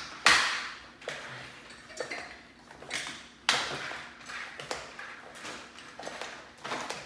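A spoon scraping and knocking against a bowl while stirring stiff cookie dough, in sharp strokes about once a second.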